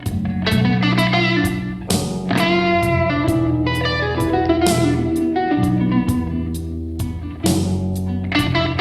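Instrumental music led by plucked guitar over sustained bass notes, with a steady beat of sharp percussive hits.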